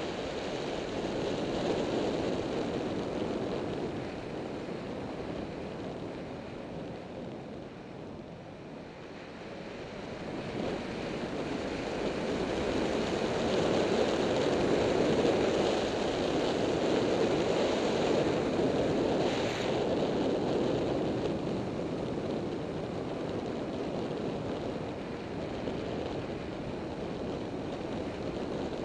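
Wind rushing over the microphone of a camera on a motorcycle riding at road speed: a steady roar with no clear engine note. It dips about eight seconds in and swells louder through the middle.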